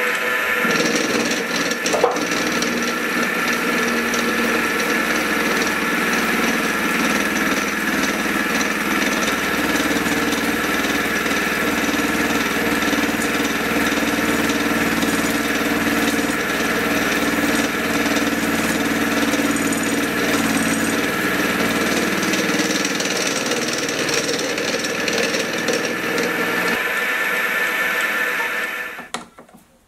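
Milling machine running, its spinning cutter milling a steel bar blank to square it up: a steady machining sound with a knock about two seconds in. Part of the sound fades after about 23 seconds, and the machine stops just before the end.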